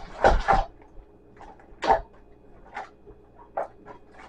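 A few short knocks and clatters of small haul items (video game cases and roll-on bottles) being packed into a container, the loudest near the start and about two seconds in.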